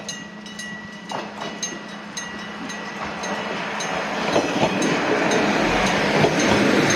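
Japanese level crossing alarm ringing its kan-kan in even strikes, about two a second, while a Kominato Railway diesel railcar approaches. The train's rumble and rail noise grow steadily louder over the last few seconds until they largely cover the bell.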